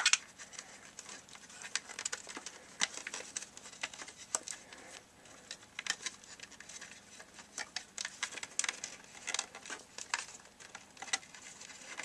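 Scattered light clicks, taps and rustles of hands working a power cord and plastic parts out through an opening in the back of a wooden radio cabinet.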